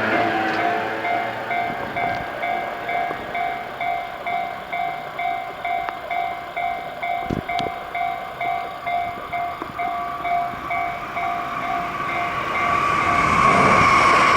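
Japanese level-crossing warning bell clanging at about two strokes a second, the signal that a train is due. Near the end an electric train's running noise swells up loud and drowns the bell as the train reaches the crossing.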